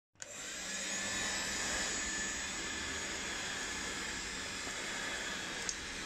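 Makita DCL180Z 18 V cordless handheld vacuum running, sucking up sawdust from the floor: a steady motor-and-airflow noise with a faint hum that comes up within the first second and then holds even, with one brief click near the end.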